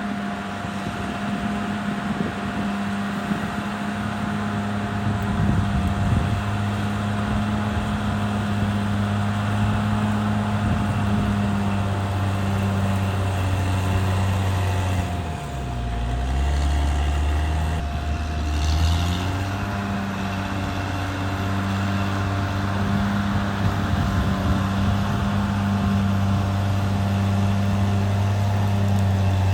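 Caterpillar D6R XL bulldozer's diesel engine running steadily, with a constant thin whine alongside. About halfway through, the engine speed drops for a few seconds, then picks back up.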